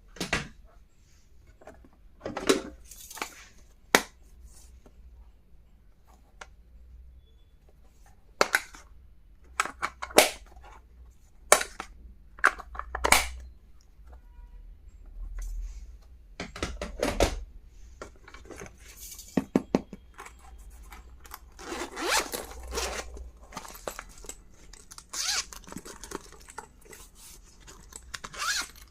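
Stationery being unboxed by hand: irregular rustling and tearing of packaging, broken by sharp clicks and taps as the plastic items are handled.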